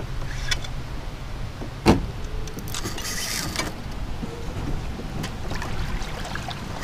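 Kayak being moved along by paddle: a sharp knock against the hull about two seconds in, then a short hissing splash of the paddle in the water, over a steady rumble of wind on the microphone.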